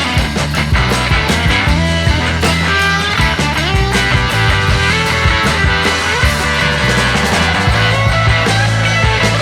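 Background rock music with electric guitar, a steady beat and a strong bass line.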